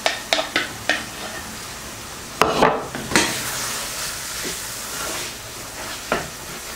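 A wooden spatula stirring and scraping chicken pieces, curry paste and coconut milk in a stainless steel pan over a steady sizzle, with a few sharp clicks in the first second and louder knocks and scrapes about two and a half seconds in.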